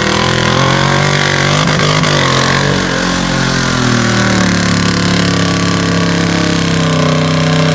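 Lifted mud truck's engine revving hard at high revs as its big tyres churn through mud; the pitch wavers and sags about two to three seconds in, then holds steady and high.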